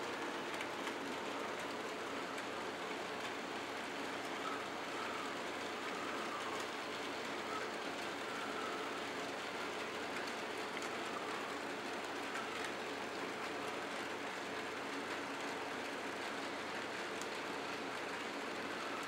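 HO-scale model trains running steadily around the layout's track: the even rolling noise of their wheels and small motors.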